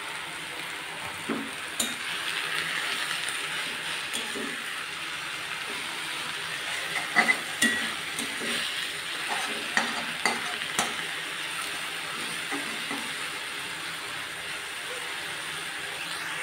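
Jute leaves sizzling steadily in hot oil in a kadai as they are sautéed with salt and turmeric, with a spatula scraping and knocking against the pan as they are stirred; the sharpest knocks come in a cluster from about seven to eleven seconds in.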